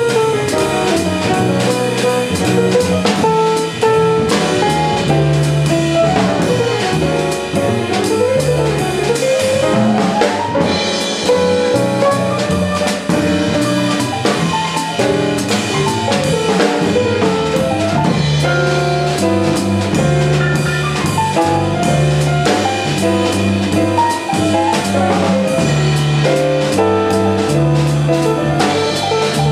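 Live jazz quartet of trumpet, piano, upright bass and drums playing a tune in 5/4, with low bass notes and the drummer's cymbals running throughout.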